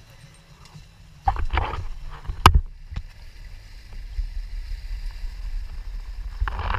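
A boat running at sea: a steady low rumble with water rushing, and a single sharp knock about two and a half seconds in.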